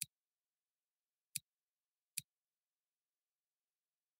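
Three sharp computer mouse clicks: one at the very start, a second about a second and a half later, and a third under a second after that, with dead silence between them.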